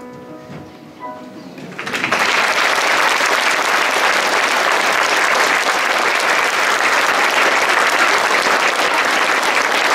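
The last notes of a song on piano die away, then a hall audience breaks into applause about two seconds in and keeps clapping steadily.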